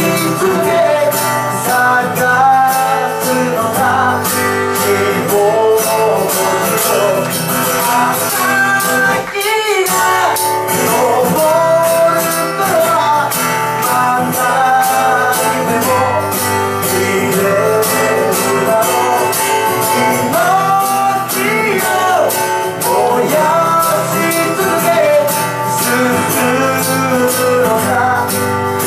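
Live acoustic song performance: a man singing into a microphone over an acoustic guitar.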